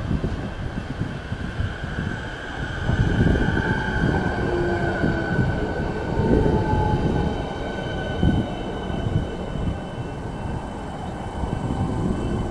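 Siemens Nexas electric multiple-unit train running past as it brakes into a station. Its traction equipment gives a steady high whine with several tones, some sliding slightly lower as it slows. Wind buffets the microphone with a gusty low rumble.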